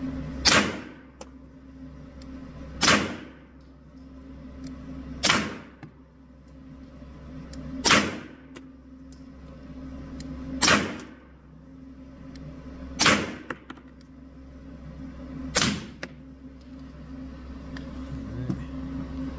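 Seven shots from a suppressed TISAS PX9 Gen 3 9mm pistol, fired slowly and evenly about two and a half seconds apart, each a sharp report with a short echo. The rounds are mixed 147- and 124-grain 9mm loads.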